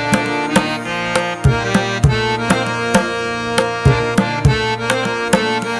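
Background music: sustained pitched tones over a steady percussive beat.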